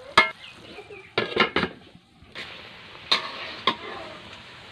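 Metal spatula clinking and scraping against a metal cooking pot while hog plums are stirred in boiling sugar syrup: several sharp clinks, a quick run of them about a second in, over a steady bubbling hiss of the syrup.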